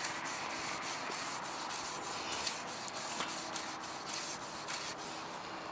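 Number 4 steel wool scrubbing a wet aluminum door threshold in quick repeated back-and-forth strokes, a steady scratchy rasp as oxidation, lime and calcium deposits are scoured off.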